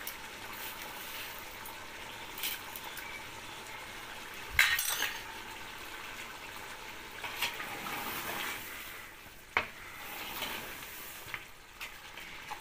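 Chicken pieces sizzling in their own released juices in a large aluminium pot, with a few knocks and clinks of a ladle against the pot, the loudest about four and a half seconds in.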